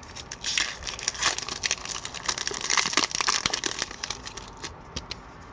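An Upper Deck hockey card pack wrapper being crinkled and torn open, a run of crackling rustles that dies down about four and a half seconds in.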